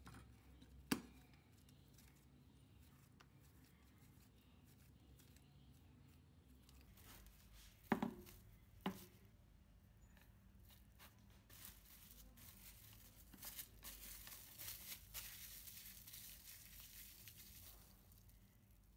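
Plastic food wrap crinkling and rustling as a ball of shortcrust pastry dough is wrapped in it, through the second half. Before that, a few sharp knocks: one about a second in and two close together around the middle.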